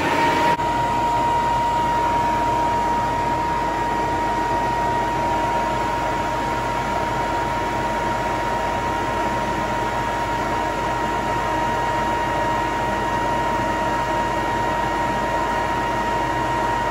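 Inflatable bounce-house blower in a homemade negative-air box, finishing its spin-up with a rising whine about half a second in, then running steadily at full speed. It gives a loud rush of air with a steady high whine as it pulls room air through a furnace filter.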